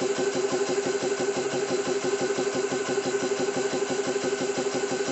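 Xisico CS3 4500 PSI portable high-pressure air compressor running steadily: a fast, even pumping pulse under a steady hum, with its cooling fans going, loud at close range (about 85 dB on a meter).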